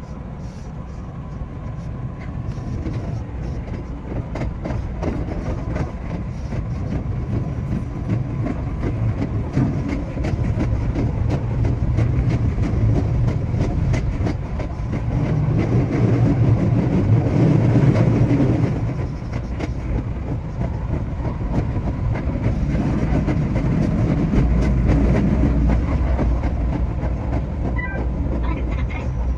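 Running noise of a JR West 227 series electric train heard from the cab: a low rumble of wheels on rail with many quick clicks over the track. It grows louder to a peak about two-thirds of the way in, then eases off.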